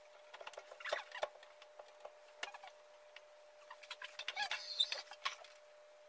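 Hands handling a glass-door wine fridge while it is fitted into a cabinet: scattered clicks and taps and a few short squeaks, loudest about 1 s in and about 4.5 s in, over a steady faint hum.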